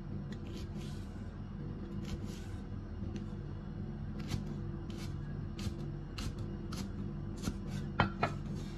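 Chinese cleaver slicing a scallion stalk on a wooden chopping block: a string of short, irregular knife taps on the board, with two sharper knocks near the end.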